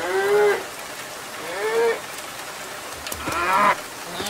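Cattle mooing: three short calls, each about half a second, about a second and a half apart.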